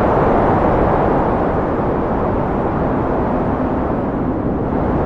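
A loud, steady rushing roar with no tune or beat, swelling in at the start and then holding even.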